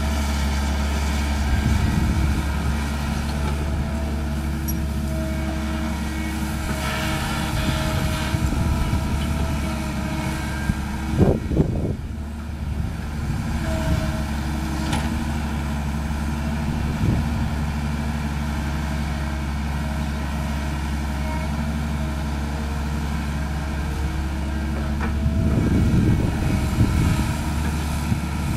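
Caterpillar hydraulic excavator's diesel engine running steadily while it digs and loads. There are two sharp knocks about eleven seconds in and louder rattling near the end.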